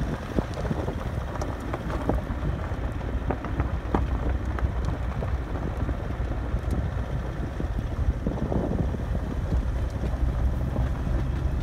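Wind buffeting a phone's microphone held at the open window of a moving car, over the car's steady low road rumble.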